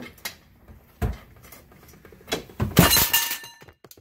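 2020 Jeep Cherokee Trailhawk falling off a Hi-Lift jack: a heavy thud about a second in, then a loud metallic crash with ringing as the steel jack clatters onto the concrete floor, dying away before the end. The owner puts the fall down to the unlocked steering letting the raised front wheel turn and pull the Jeep forward off the jack.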